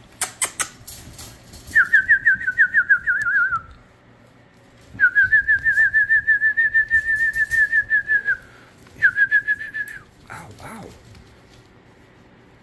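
A high, rapidly warbling whistle in three trilled phrases, the first sliding slightly downward, the second long and steady, the third short.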